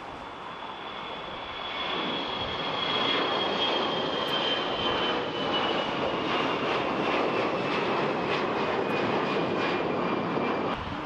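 Twin-engine jet airliner climbing out after takeoff and passing overhead: a broad jet roar that swells about two seconds in, with a high fan whine slowly falling in pitch.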